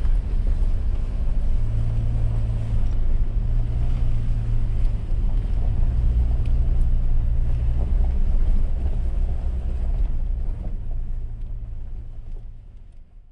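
Vehicle driving over a rough dirt track, heard from inside the cabin: a steady low rumble of engine and tyre noise that fades away near the end.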